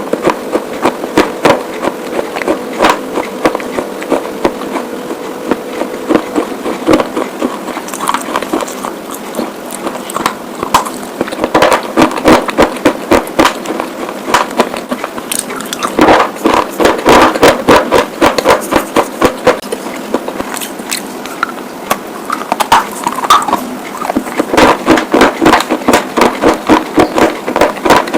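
Close-up crunching of white slate pieces being bitten and chewed. Rapid, sharp crunches come in dense runs, with a couple of sparser stretches between them.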